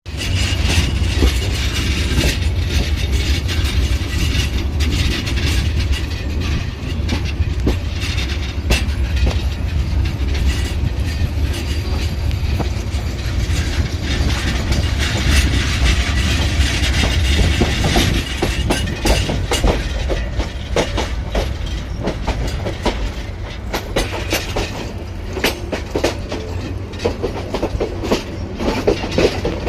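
Lalmoni Express passenger train running on the rails: a steady low rumble with repeated clicks of the wheels over rail joints, the clicking growing more frequent in the second half.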